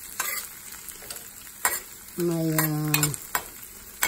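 Diced tofu, carrots and onion sizzling in oil in a stainless steel pan, with a few sharp clicks of a utensil against the pan. About halfway through, a person's voice holds a short steady hesitation sound for about a second.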